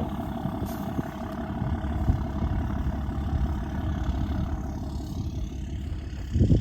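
A vehicle engine running steadily with a low rumble, with a cow lowing briefly near the end.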